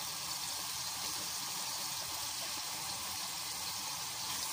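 Ginger-garlic and spice masala with a little water sizzling and bubbling in a pot, a steady even hiss.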